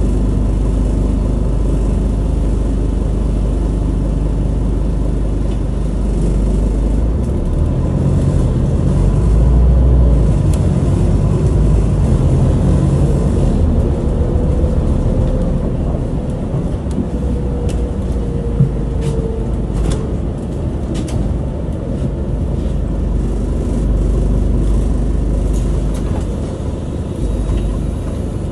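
Inside a Scania Citywide LFA articulated city bus under way: steady low engine and road rumble that swells for a few seconds early in the ride, with a faint whine sliding down in pitch midway and a few light rattles.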